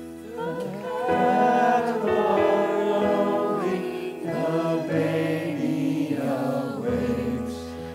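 Choir singing a slow song with musical accompaniment.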